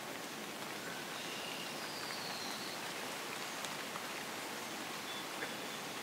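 Steady outdoor background hiss with a few faint, short whistled notes and a couple of soft ticks.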